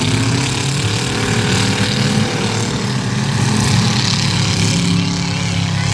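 Demolition derby cars' engines running hard, one revving up in the first second and then holding high.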